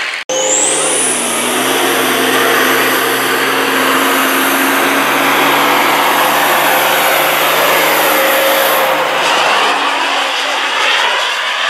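Semi truck's diesel engine running at full load as it pulls a weight sled, with a steady drone and heavy roar. A high whistle climbs within the first second and holds over it, then drops away near the end. A brief gap at the very start marks a cut.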